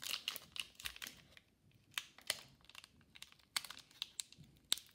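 Hockey card pack wrapper crinkling and tearing as it is handled and opened by hand, in short irregular crackles.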